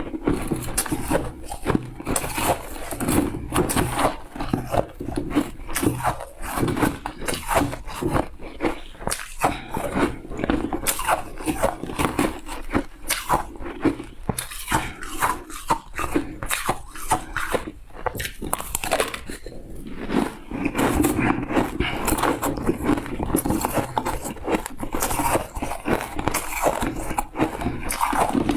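Close-up chewing and crunching of shaved ice coated with vegetable powder: dense, irregular crisp crunches, many per second, with a brief lull partway through.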